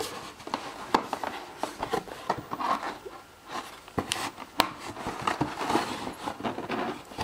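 A cardboard box being handled and worked open by hand: rubbing and scraping of cardboard with scattered taps, and sharp knocks about a second in and twice around four seconds in.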